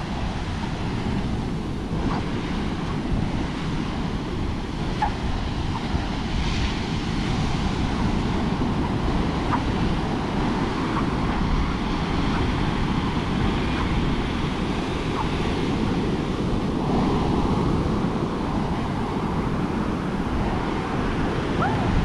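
Ocean surf breaking on the shore, a steady rushing wash, with wind buffeting the microphone.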